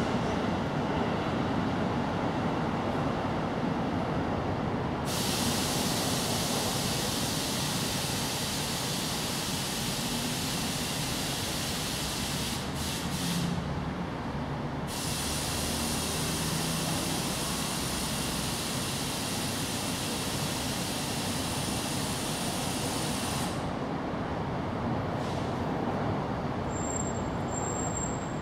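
Steady outdoor background noise with a low rumble, overlaid by a high hiss that starts suddenly about five seconds in, breaks off briefly in the middle and cuts off near the end.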